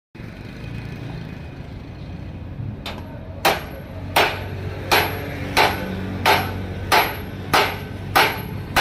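Hammer striking metal in an even rhythm, about nine blows a little under a second apart, each with a brief metallic ring. The blows start about three seconds in, over a steady low workshop hum.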